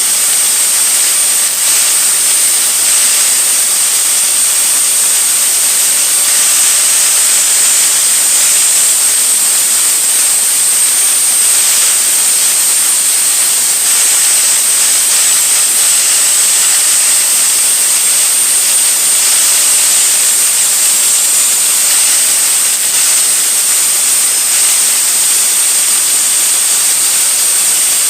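Grinder sharpening the metal cutting blade of a Flymo lawnmower: a loud, steady grinding hiss with a high whine.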